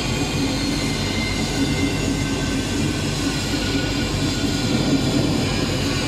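Stainless-steel mesh drum of a dry-cleaning machine turning with chili peppers inside: a steady mechanical running noise with a low hum.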